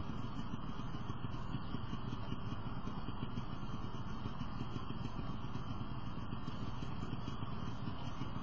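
A motor vehicle's engine running steadily with a low rumble.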